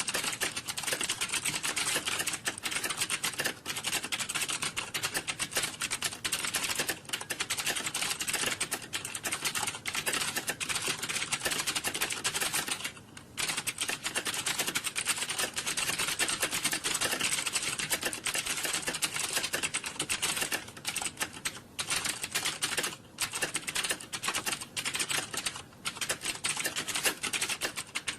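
Fast computer keyboard typing: a dense, continuous clatter of keystrokes, with a brief pause about 13 seconds in.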